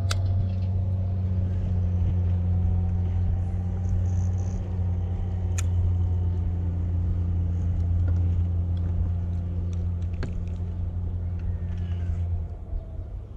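Bass boat's motor running steadily at low speed, a constant low hum that cuts out near the end, with three sharp ticks over it.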